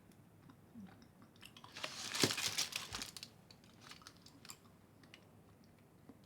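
A person chewing a bite of Babaevski grapefruit chocolate with a crunchy filling, close to the microphone. There is a burst of crunching about two seconds in and soft chewing clicks around it.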